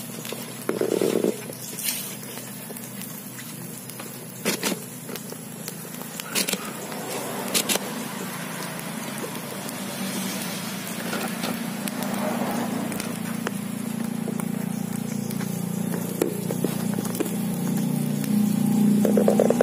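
A low, steady engine hum that grows louder toward the end, with a few sharp clicks scattered through the first half.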